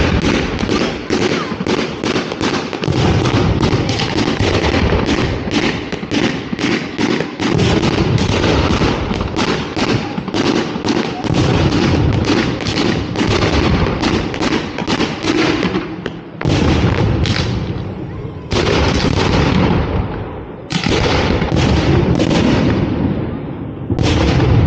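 Fireworks display: a fast volley of aerial shells launching and bursting, two or three sharp bangs a second. In the last third it thins to a few heavier booms about two seconds apart, each with an echoing tail.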